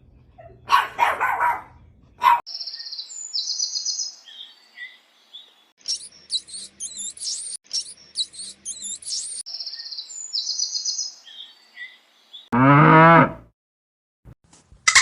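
Small birds chirping and trilling in quick high calls, then a cow gives one short, loud moo near the end.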